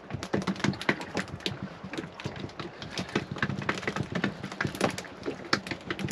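Rapid irregular clicks and light knocks from a small fishing boat drifting at sea, over a low steady hum.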